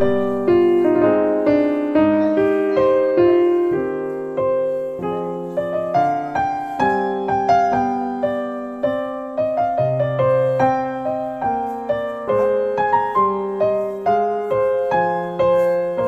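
Background piano music: a gentle melody of struck notes over lower sustained notes, at about two notes a second.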